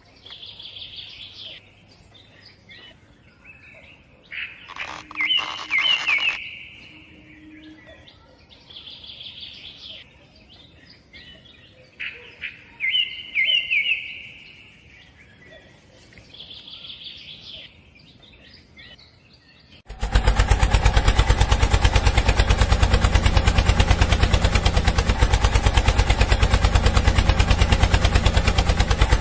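Birds chirping for the first two-thirds. Then a small motor on a miniature DIY tractor starts abruptly and runs with a loud, rapid, steady chatter, belt-driving a miniature water pump.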